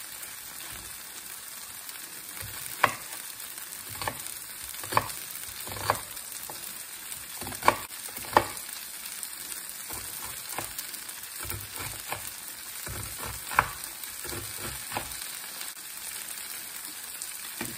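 Vegetable fajitas sizzling steadily in a frying pan, with a knife knocking on a cutting board at irregular intervals, roughly once a second, as a red onion is diced.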